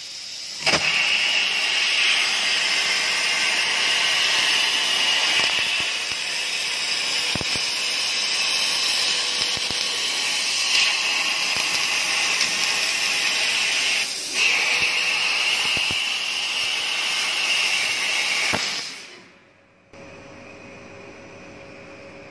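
Fiber laser cutting head cutting thick metal plate: a loud, steady hiss of the assist-gas jet and the cut, with a few sharp clicks. It fades out about nineteen seconds in, leaving a much quieter steady machine hum.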